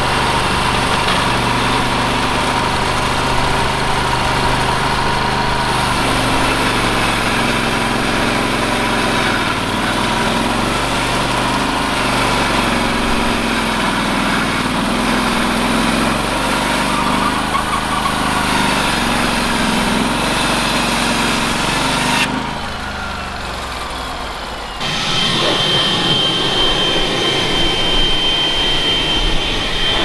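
Norwood portable bandsaw mill running under load, its engine drone steady as the band blade cuts through a log, with its drive belt just re-tensioned after slipping. About 22 seconds in the mill sound cuts off suddenly, and a few seconds later a different steady machine noise with a thin high whine takes over.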